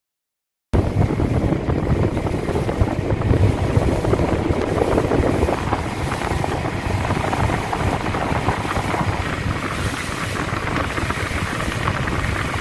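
A boat running at sea: a steady engine drone under heavy wind buffeting the microphone, starting abruptly about a second in.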